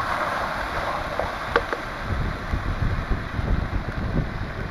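Wind buffeting the microphone in a steady rumble, with one sharp tap of a spatula on the metal frying pan about a second and a half in.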